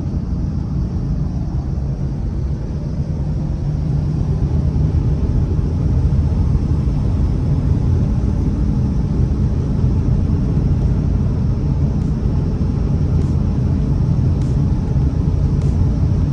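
Steady low rumble of a vehicle driving on an icy, snow-covered highway: engine and tyre noise, with a few faint ticks near the end.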